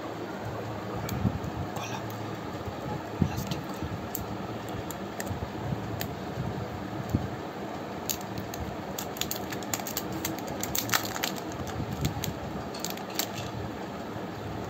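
Scattered light clicks and taps from handling small objects, thickest over a few seconds in the second half, over a steady background noise.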